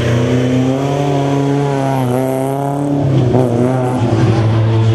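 BMW M3 rally car's four-cylinder engine revving hard as it is driven through a corner. Its pitch dips about two seconds in, then climbs again.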